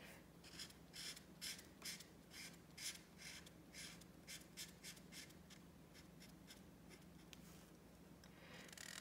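Faint scratching of a felt-tip marker on paper as the marker colors in an area in short back-and-forth strokes, about three a second, thinning out after about five seconds.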